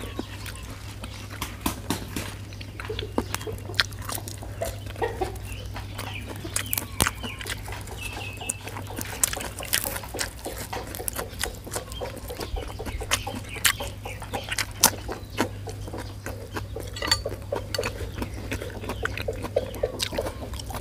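Close-up wet chewing, lip smacking and mouth clicks of a man eating a soupy raw pig's blood dish with offal and fresh herbs, the clicks coming irregularly many times a second.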